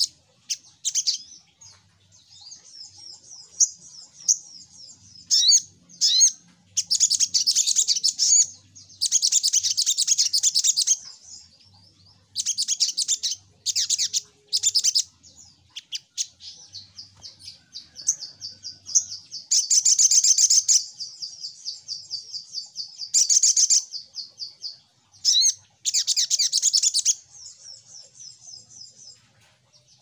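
Sogok ontong sunbird singing a high, fast twittering song. Loud chattering bursts alternate with quieter, thin sustained trills, broken by short pauses.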